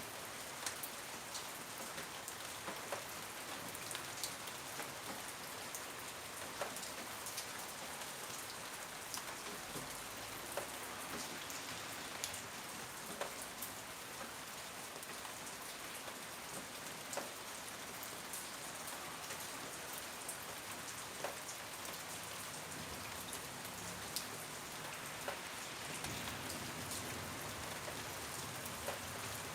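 Steady rain falling, with individual drops landing in sharp taps every second or so.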